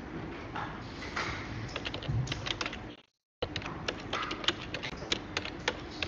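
Computer keyboard typing: irregular key clicks over a steady background hiss, with a dull knock about two seconds in. The sound cuts out completely for a moment about halfway through.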